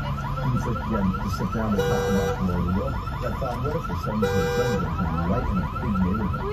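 Car alarm going off: a rapid warbling chirp, about eight strokes a second, broken by a steady horn-like blast about every two and a half seconds.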